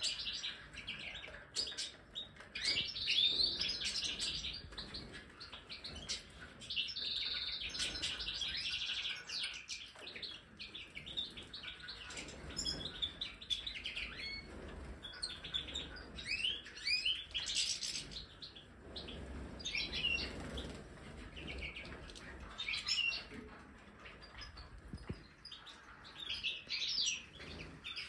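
A flock of European goldfinches of the large Major type twittering and calling, with many short, bright chirps overlapping throughout.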